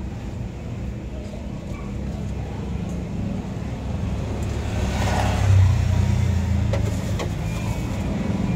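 A motor vehicle's engine running on the street, its low rumble building to a peak a little past halfway and then easing off. A few faint clicks sound near the end.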